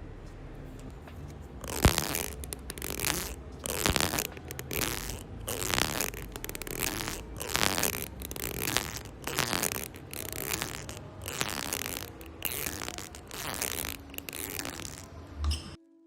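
Foley crunching made by hand, repeated at an even pace of about three strokes every two seconds. It stops abruptly just before the end.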